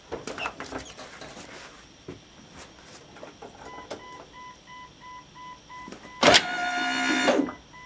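Western Suburbanite / Fisher Homesteader snowplow's electric hydraulic pump motor whining for about a second as the blade is raised. A steady electronic beeping, several beeps a second, starts about halfway through, and light clicks and crackles come in the first couple of seconds.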